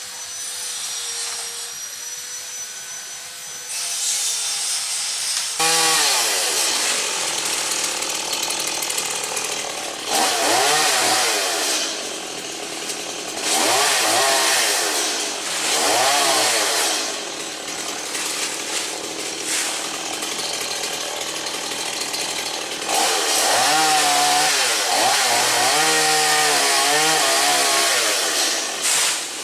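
STIHL MS 170 two-stroke chainsaw running steadily at first. About five seconds in it begins revving hard in repeated bursts, its pitch dipping and rising as it cuts into wood, with the engine dropping back to a lower steady note between bursts.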